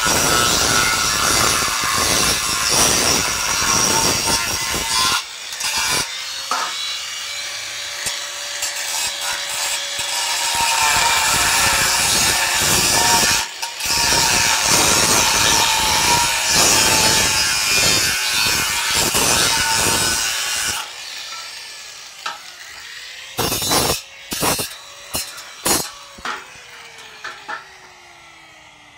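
Angle grinder cutting steel, a loud rasping hiss with a steady high whine. About two-thirds of the way through the cutting stops, several sharp metal knocks follow, and a falling tone near the end marks the disc winding down.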